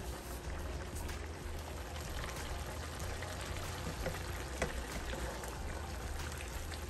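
Sliced yellow squash and onions cooking down in a skillet: a steady sizzling, bubbling hiss with a few faint ticks, over a low steady hum.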